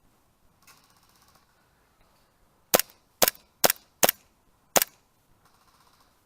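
Airsoft gun firing five single shots in quick succession, sharp cracks about half a second apart with a slightly longer gap before the last.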